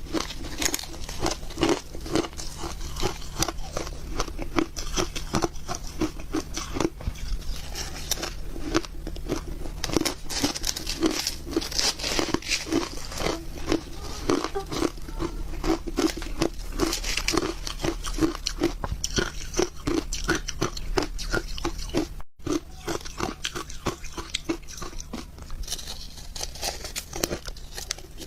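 Close-miked crunching and chewing of ice: a dense run of quick crunches as the ice is bitten and ground between the teeth, with a brief break about 22 seconds in.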